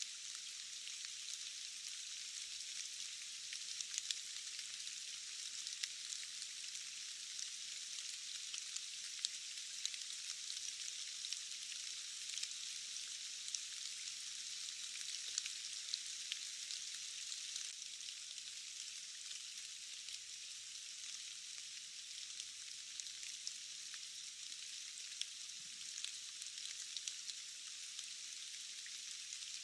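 Steady rain falling, an even, thin hiss with no low rumble, with many scattered individual drops ticking sharply over it.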